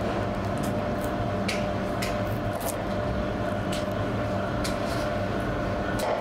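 Steady machine hum with a low drone and a faint higher tone, with a few faint light clicks scattered through.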